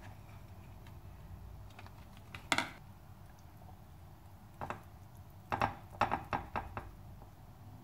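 Light clicks and taps of dishes and a metal spoon while food is plated: one sharp knock about two and a half seconds in, then a quick run of small clicks near the end, over a low steady hum.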